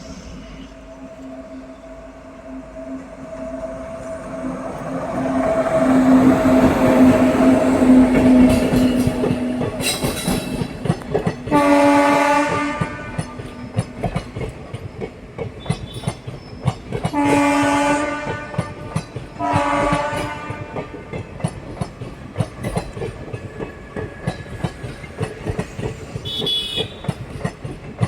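WAG9 electric locomotive hauling a passenger train, its rumble growing louder as it comes in, then three loud blasts of its air horn, the last two close together. Afterwards the coaches' wheels clack steadily over the rail joints as the train rolls past.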